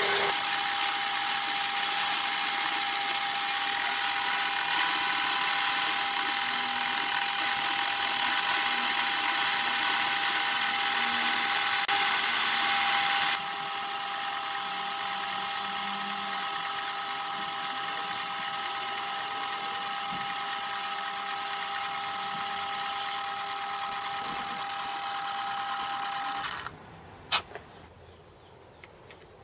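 Metal lathe running under power with a steady whine, making a cut. It gets quieter about halfway through, stops near the end, and a single click follows.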